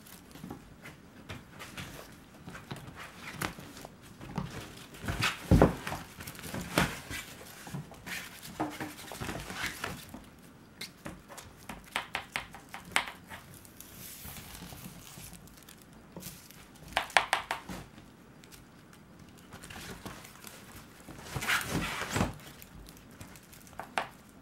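Kittens scampering and pouncing on a wooden floor, chasing a wand toy: irregular thumps, paw taps and scrabbling, in louder flurries a few times, with some rustling of a fabric play tent.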